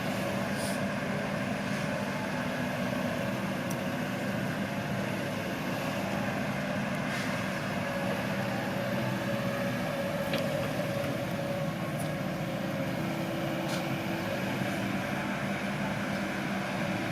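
Bulldozer's diesel engine running steadily at an even pitch, with a few faint clicks.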